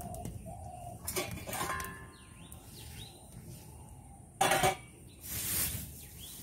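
Quiet clinks and knocks of cooking utensils around an aluminium kadai of heating oil, with one louder clatter about two thirds of the way through, followed by a short hiss.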